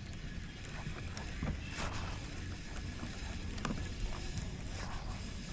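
Wind buffeting the microphone on an open fishing boat, a steady low rumble with water around the hull and a few light knocks.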